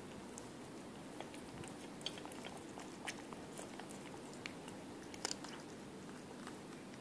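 Cat eating wet food from a metal bowl, with irregular soft clicks and smacks of chewing and licking. The loudest click comes about five seconds in.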